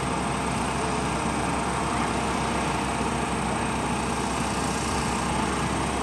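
A motor running steadily, most likely the engine of the crane holding the van on its cables, under a steady outdoor noise.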